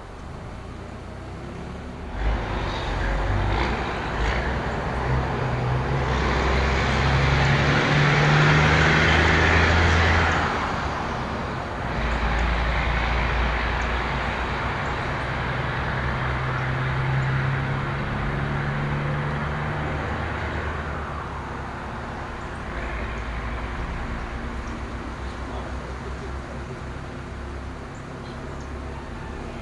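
A semi truck's diesel engine starts about two seconds in and runs, revving up twice before settling to a lower, steady run for the last several seconds.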